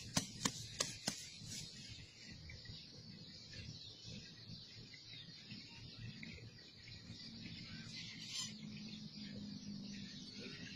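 A machete blade knocks against bamboo sticks four times in quick succession within the first second, then birds chirp in the background.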